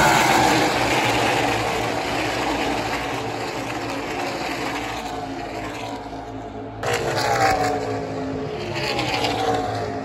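NASCAR stock cars' V8 engines running at racing speed, their pitch falling as they pass. About seven seconds in a fresh pack of cars comes by, with the same falling drone.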